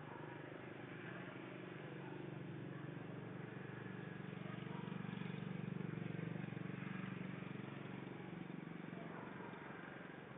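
Low motor hum over steady background noise, swelling to its loudest about halfway through and then easing off.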